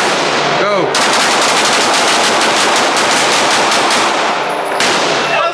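Two 9mm Glock pistols fired as fast as the triggers can be pulled, the shots running together in a continuous stream for about four and a half seconds, echoing in an indoor range. A short shout comes near the start, and the firing stops shortly before the end.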